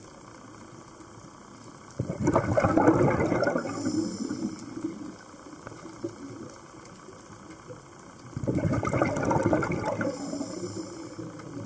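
Scuba diver's exhaled bubbles gurgling out of the regulator underwater: two bursts, each about two to three seconds long and about six seconds apart, with a faint high hiss following each.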